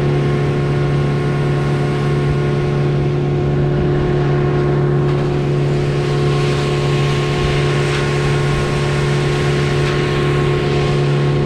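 A motorboat engine running at a steady speed, with a constant drone and a wash of water and wind noise.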